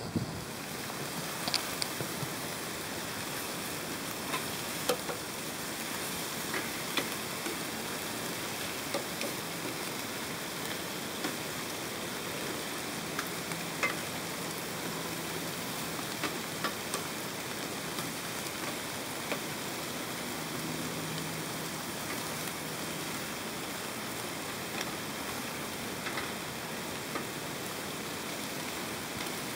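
Beef short ribs sizzling on foil in a covered grill pan: a steady frying hiss, dotted with many small pops and clicks.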